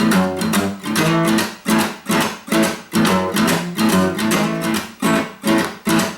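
Acoustic guitar strummed in a steady blues rhythm, about two strokes a second, during an instrumental break with no singing.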